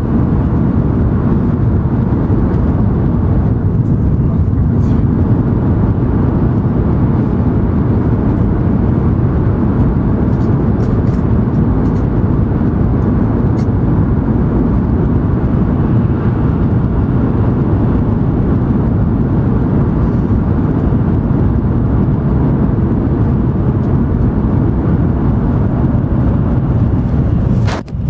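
Cabin noise inside an N700 series Shinkansen running at speed: a steady low rumble of wheels, track and rushing air at an even level, with a brief knock near the end.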